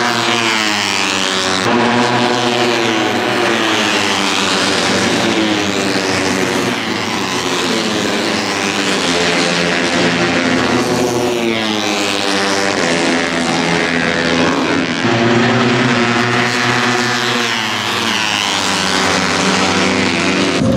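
Moto3 racing motorcycles, 250 cc single-cylinder four-stroke engines at high revs, several at a time passing on the track. Their engine notes overlap without a break, climbing in pitch and then sliding down as each bike goes by, again and again.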